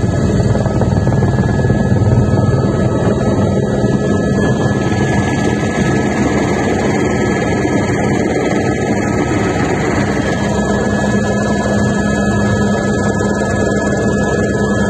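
Helicopter in flight, its engine and rotor making a loud steady drone with a constant high whine running through it.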